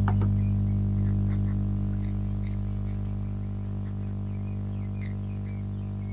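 Steady electrical hum on an open video-call microphone: a low drone with many evenly spaced overtones, with a few faint, short high chirps above it.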